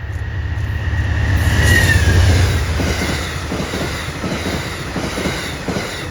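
A train passing close by: a heavy rumble that peaks about two seconds in and then slowly fades, with wheels knocking over rail joints in a clickety-clack and a brief high whine about two seconds in.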